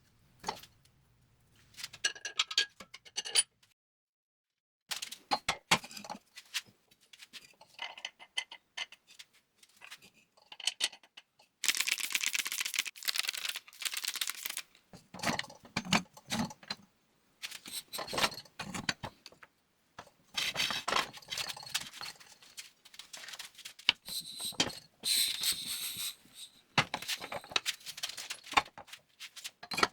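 Scattered metallic clanks, scrapes and rattles as tires are worked off steel wheels. About twelve seconds in comes a hiss lasting roughly three seconds.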